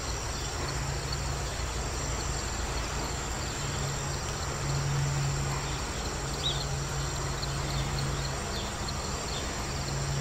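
Steady chorus of crickets trilling high, over a low hum that swells and fades.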